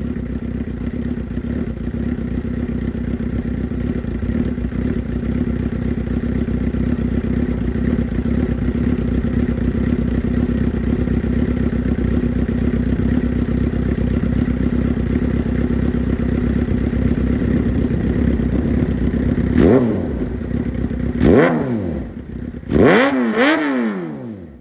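Suzuki GSX-R600's inline-four engine idling steadily through an aftermarket exhaust, then revved in three or four quick blips near the end, the pitch rising and falling each time.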